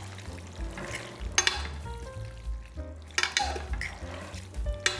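Two forks stirring and tossing fettuccine in a creamy sauce in a stainless steel pot: wet, sloppy stirring with metal scraping and clinking against the pot, three sharper clinks along the way.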